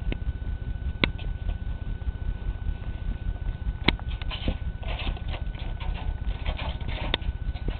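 Kittens' paws and claws scrabbling and pattering on wooden floorboards and loose straw as they wrestle, with a busy flurry of scratching from about four seconds in and a few sharp knocks.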